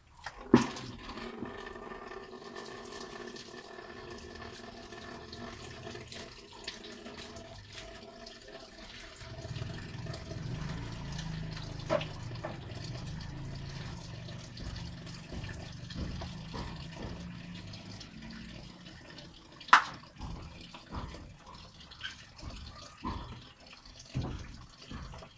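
Rainwater running and dripping steadily, with a few sharp knocks, the loudest about twenty seconds in.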